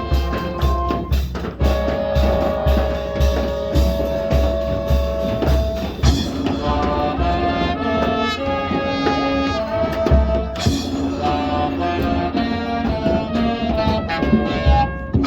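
Marching band of brass, woodwinds and percussion playing its field show. For about six seconds, steady low drum beats sound under held chords, then the winds carry a sustained melody with lighter percussion.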